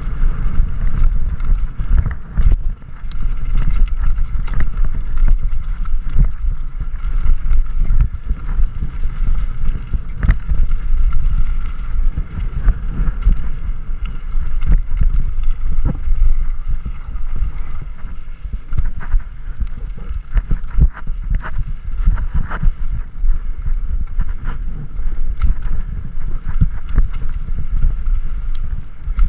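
Mountain bike riding fast down a gravel trail: a continuous low rumble of tyres and wind buffeting the bike-mounted camera's microphone, with constant irregular rattles and clanks from the bike over the rough ground.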